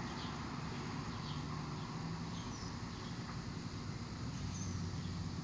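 Steady low background hum with faint bird chirps here and there.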